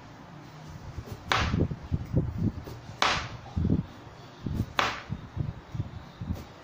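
A kitchen knife slicing through a carrot onto a plastic cutting board: three sharp chops, each about one and three-quarter seconds apart, with softer low knocks in between.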